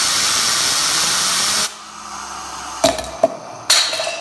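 Compressed air from an air compressor blasting a fidget spinner held in a vise, a loud hiss that cuts off suddenly under two seconds in. Near the end come three sharp clattering knocks as a plastic cup with bolts in it is dropped onto the spinning spinner.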